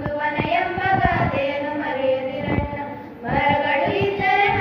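A group of schoolgirls singing a Kannada song together into handheld microphones. The singing dips briefly a little after three seconds in, then comes back on a long held note.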